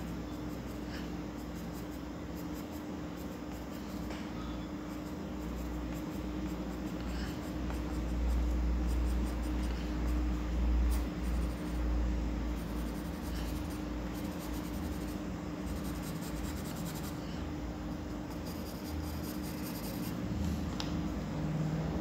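A graphite pencil scratching across drawing paper as it shades, over a steady low hum.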